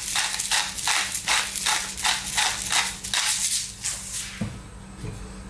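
Pepper mill grinding black pepper in a quick even rhythm of gritty strokes, about three a second, stopping about two-thirds of the way in.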